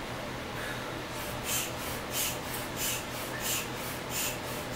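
Hand air pump squeezed over and over to inflate a large ball: a short puff of air through the hose about every two-thirds of a second, starting a little over a second in.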